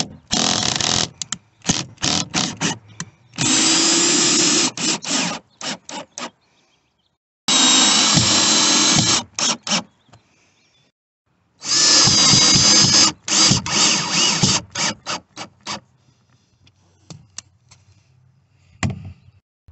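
Cordless drill/driver driving the mounting screws of a marine speaker into a fibreglass panel: each screw goes in with a run of a second or two, then several quick trigger taps to seat it, with short pauses between screws.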